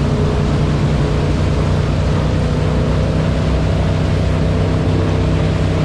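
Wakesurf boat's engine running steadily under way, an even hum, over the wash of churning wake water.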